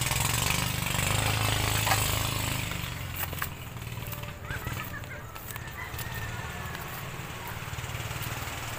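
A low, steady engine drone with a rooster crowing once about four seconds in, and scattered crunching steps on beach stones.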